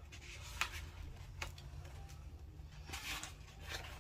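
Paper rustling and a few light taps and brushes as the pages and cards of a handmade paper journal are handled and turned, over a faint steady hum.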